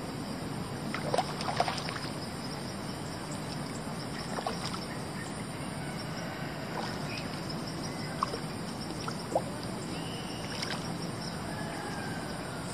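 Steady rush of flowing river water, with a few short sharp knocks or splashes: a small cluster about a second in and single ones later.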